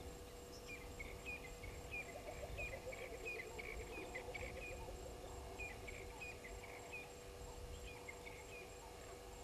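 Bush ambience at a waterhole: crickets chirping in a fast, even pulse over a steady low hum, with repeated short, sharp bird notes and a falling, rippling trill between about two and four seconds in.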